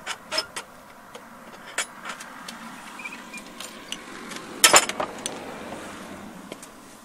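Footsteps and the metal tips of trekking poles tapping on stone steps: irregular sharp clicks and knocks, with the loudest cluster about two-thirds of the way through.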